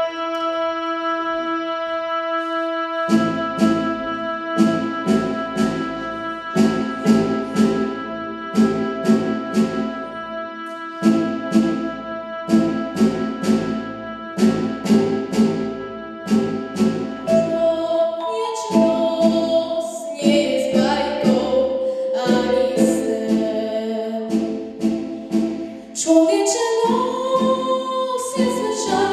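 A pop song's recorded backing track with held chords, then a steady beat that starts about three seconds in. A girl's voice sings into a microphone over it from about two-thirds of the way through, louder near the end.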